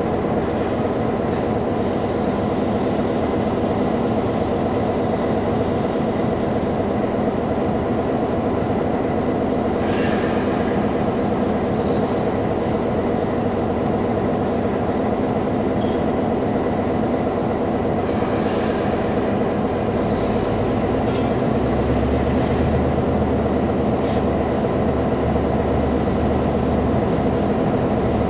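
Diesel locomotive's engine running steadily as it hauls a passenger train slowly into the platform, with a few short high squeals from the wheels. A deeper low rumble from the engine joins in the last third.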